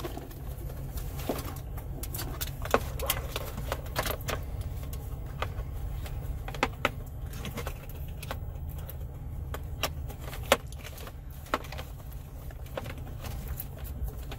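Jeep Wrangler engine idling as a steady low hum, under scattered clicks and rattles of cables, plug connectors and plastic dash trim being handled as the wires are pushed through an opening in the dash.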